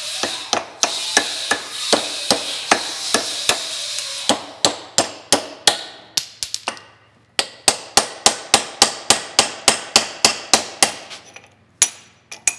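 Hammer blows on a welded-up steel spring clamp held in a bench vise, about three strikes a second, knocking loose the small tack welds that held it. The strikes pause briefly about seven seconds in, then go on, with a last couple of blows near the end. A steady hiss runs under the first four seconds.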